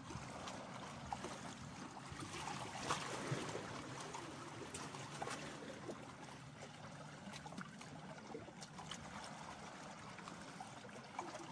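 Small sea waves lapping and trickling against the shore rocks, with a slightly louder wash about three seconds in.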